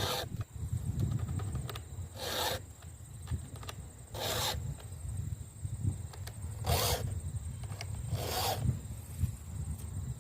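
Chainsaw file rasping across the cutter teeth of a full 3/8-inch chainsaw chain in five separate strokes, about one every two seconds, each a short scrape.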